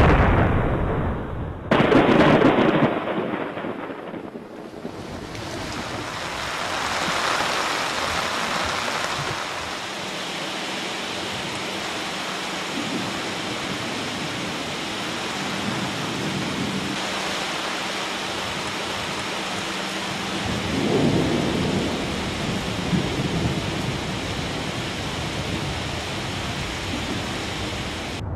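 Thunderstorm: a loud thunderclap right at the start and another about two seconds in, then steady heavy rain that swells briefly about twenty seconds in.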